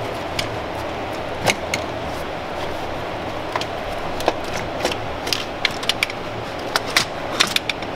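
Scattered clicks and light rattles of plastic and metal parts as a throttle actuator, caught on the parts around it, is worked loose by hand from the top of a BMW E92 M3's engine. The clicks come more often in the second half, over a steady background hiss.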